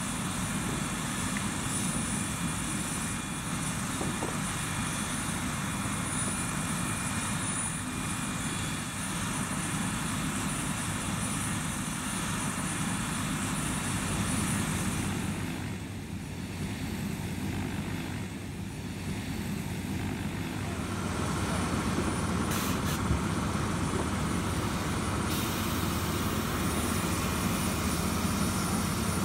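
Air ambulance helicopter running on the ground: a steady engine and rotor drone, with a few seconds' dip in level around the middle.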